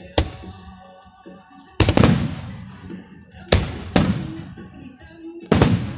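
Aerial fireworks shells bursting, with four loud bangs about every two seconds, each trailing off in a crackling, fading rumble. Music plays steadily underneath.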